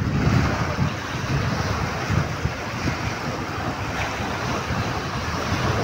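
Small sea waves breaking and washing over shoreline rocks, with wind buffeting the microphone in a steady low rumble.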